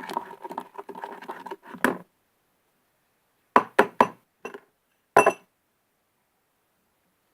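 Slime mixture being handled and stirred in a bowl, a crackly, squishy noise for about two seconds. After a pause come four or five short sharp knocks and clinks against the container.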